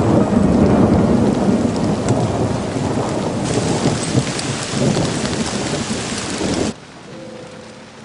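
Heavy rain in a thunderstorm, a loud, steady downpour with a deep rumble of thunder underneath. It cuts off suddenly about seven seconds in, leaving only a much quieter sound.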